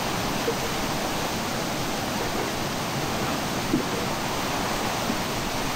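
Flooded river running high and fast: a steady, unbroken roar of muddy floodwater rushing over rapids, with a few brief faint knocks.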